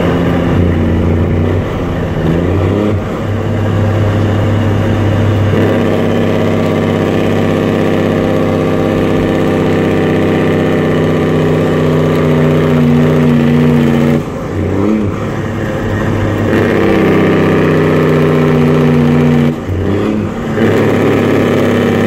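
Diesel truck engine heard from inside the cab, running steadily under load while driving. The engine note dips briefly twice, about two-thirds of the way in and again near the end, then picks up again.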